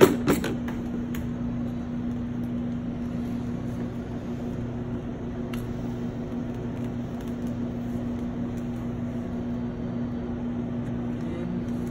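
Steady low electrical-sounding hum, with a couple of sharp clicks right at the start and a faint tap about five and a half seconds in as cords and plug are handled.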